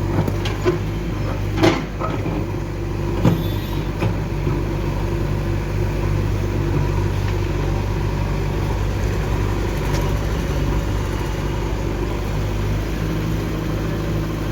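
Heavy diesel machinery running steadily at a working pace, with a couple of sharp knocks in the first few seconds.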